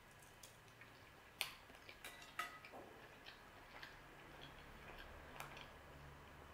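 Faint, scattered mouth clicks of someone chewing a soft mouthful of lasagna with the mouth closed, with two slightly sharper clicks about one and a half and two and a half seconds in.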